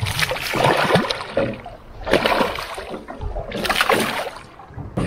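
A released snapper splashing at the water's surface as it kicks away, in a few separate splashes about two seconds apart.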